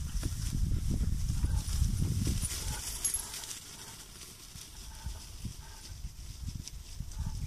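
Wind rumbling and buffeting on the microphone, easing off about two and a half seconds in to a quieter breeze.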